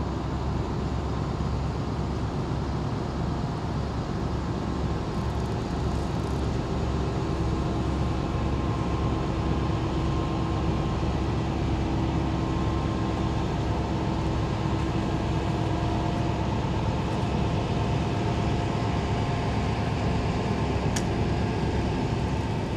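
Diesel engine of a passing river boat running steadily: a low, even drone with a fast throb underneath and a faint hum over it.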